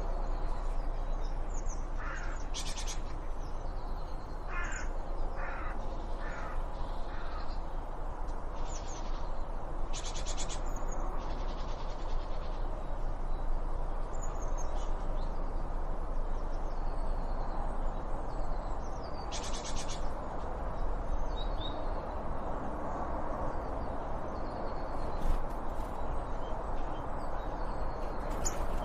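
Birds calling, with short chirps and a louder, buzzy call about three times, over a steady background noise.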